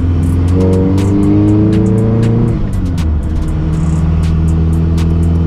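Toyota pickup's engine heard from inside the cab, revs climbing for about two seconds under acceleration, then dropping on an upshift of the freshly rebuilt R150 manual transmission and settling to a steady pull in the next gear.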